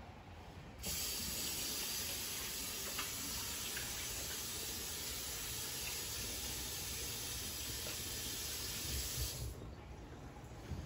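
Steady hiss of water, starting abruptly about a second in and cutting off abruptly near the end.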